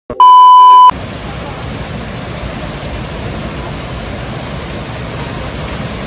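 Loud steady test-tone beep of a TV colour-bars transition effect, cut off sharply after under a second, then a steady even rushing noise.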